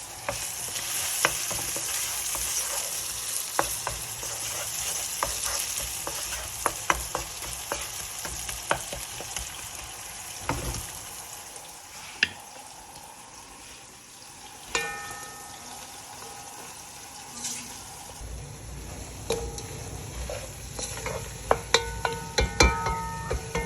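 Food frying and sizzling in a pan while it is stirred, with a utensil clicking and scraping against the pan. The sizzle fades about halfway through. Near the end a low hum sets in, with quick clusters of ringing metal clinks.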